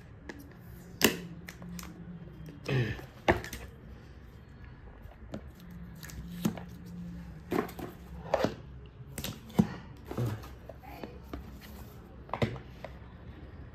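Fingernail picking and peeling the seal stickers off a smartwatch's cardboard box, with irregular sharp clicks, scratches and taps as the box is handled.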